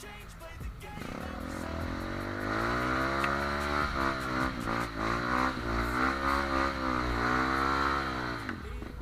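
Trail motorcycle engine revved hard, climbing in pitch and then held at high revs with a wavering pitch for several seconds before dropping away near the end.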